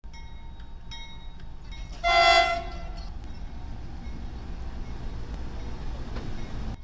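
A train's low steady rumble, with one short horn blast about two seconds in.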